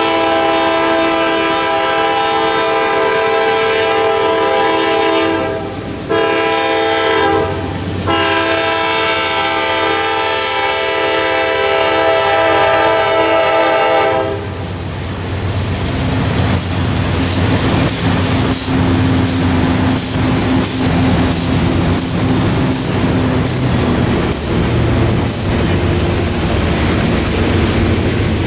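Horn of a Norfolk Southern GE Dash 9-44CW locomotive sounding for the grade crossing: long blasts broken briefly about six seconds in and again about eight seconds in. At about fourteen seconds the horn stops as the locomotives pass, and the diesel engines' rumble and the clickety-clack of freight car wheels take over. Through this the crossing's electronic bell dings about twice a second.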